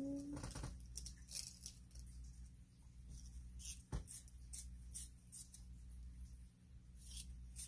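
A Prismacolor coloured pencil being sharpened by hand in a manual sharpener: short, irregular scraping strokes, with a sharp click about four seconds in. The pencil's tip has just broken.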